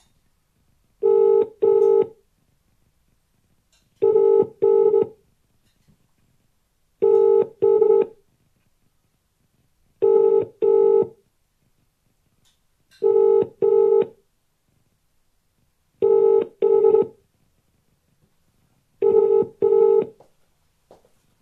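British telephone ringing tone heard while a call waits to be answered: a steady double ring repeating every three seconds, seven times, with the call still unanswered.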